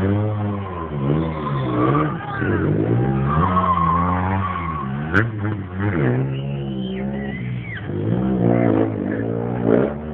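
Sport motorcycle engine revving, its pitch rising and falling over and over as the stunt rider works the throttle, with a single sharp crack about five seconds in.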